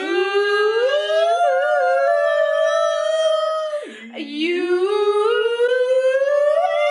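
A dog howling: two long howls, each rising slowly in pitch and then held, with a short break between them about four seconds in.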